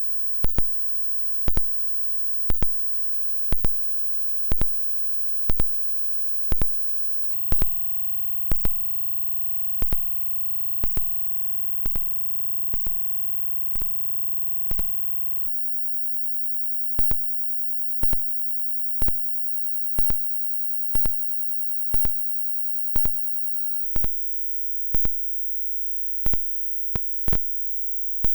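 Hearing-test tone: a steady, very high-pitched pure tone that steps up in pitch three times, about every eight seconds. Sharp ticks about once a second keep time over it, and they are louder than the tone.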